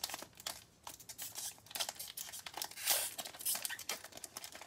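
Cellophane wrapper of a trading-card pack crinkling and rustling as it is handled and turned over, with a louder crackle about three seconds in.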